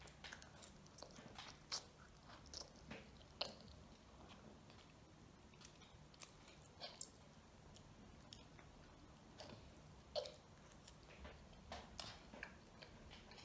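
A child eating ramen noodles with chopsticks: faint chewing and short, wet mouth clicks, scattered at irregular intervals.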